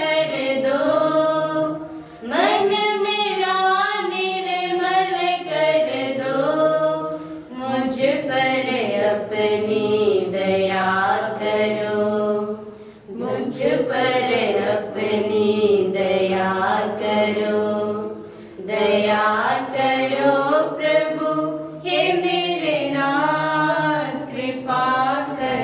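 Church choir singing a slow, chant-like Hindi hymn in phrases of about five seconds, with short breaks between them.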